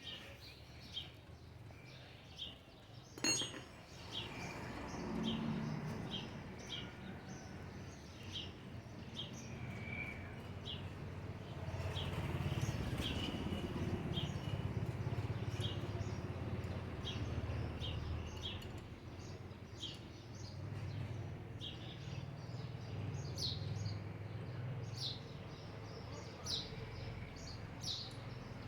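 A bird chirping over and over, short high chirps about once a second, over a steady low rumble, with one sharp click about three seconds in.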